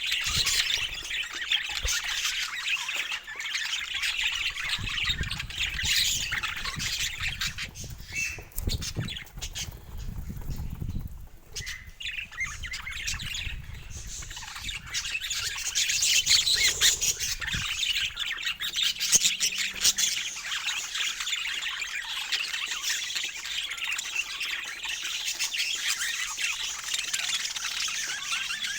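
Budgies chattering and chirping continuously in a dense, rapid stream of high calls. A low rumbling noise runs underneath for several seconds in the first half.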